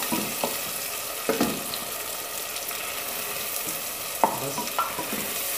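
Sliced onions sizzling in hot oil in an aluminium pressure cooker as they are browned, stirred with a wooden spatula that scrapes and knocks against the pot a few times.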